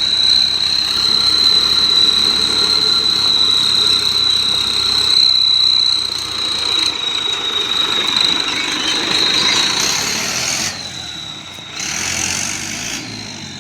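Tractor engine running with an add-on turbo whistle giving one steady, high-pitched whistle over the engine noise. Near the end the engine eases off and the sound grows quieter.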